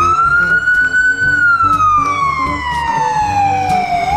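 Ambulance siren on a slow wail. The pitch climbs to its top about a second in, slides steadily down for about three seconds, then starts to rise again at the very end.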